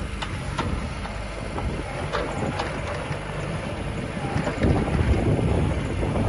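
JCB 18Z-1 mini excavator's diesel engine running while the boom, arm and dozer blade are worked hydraulically, with a few light knocks from the machine. Wind buffets the microphone.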